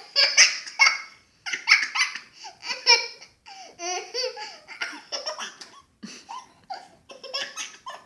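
Young child laughing hard at a baby's hiccups: a string of short, high-pitched laughs with brief pauses for breath.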